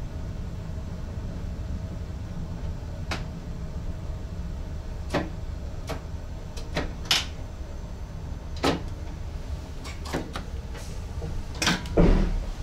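Steady low rumble inside the cab of an NS ICM electric train, with about a dozen irregular sharp clicks and knocks. The loudest comes near the end with a low thud.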